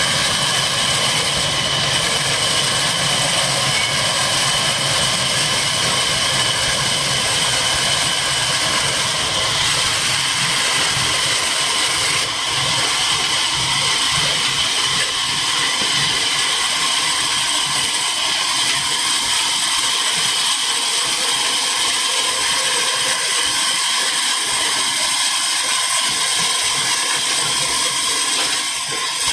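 Large belt-driven band saw, powered by a Ruston Hornsby diesel engine, running steadily as a wooden beam is fed through the blade. A loud, even mechanical din whose low rumble thins out past the middle.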